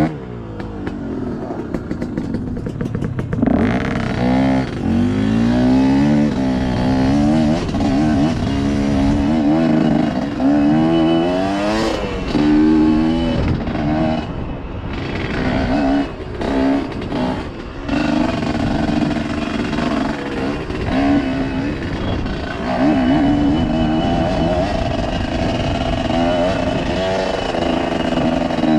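GPX dirt bike engine being ridden along rocky singletrack, revving up and down as the rider works the throttle through the gears. The throttle is briefly shut off several times around the middle, and there is one sharp knock about twelve seconds in.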